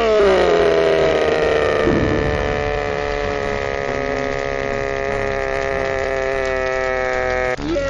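Slowed-down cartoon audio: a long, low, drawn-out tone with many overtones. It slides down in pitch during the first second, then holds nearly steady and breaks off just before the end.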